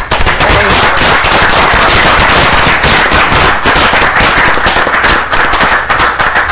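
Applause: a room of people clapping, a loud, dense, steady patter of many hands.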